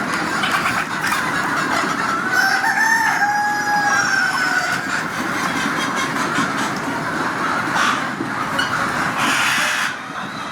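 A rooster crowing once, a single drawn-out crow of about two and a half seconds a couple of seconds in, over steady background noise with chicken clucking.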